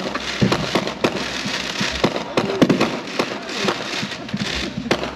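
Aerial fireworks bursting overhead: a rapid series of bangs with crackling between them.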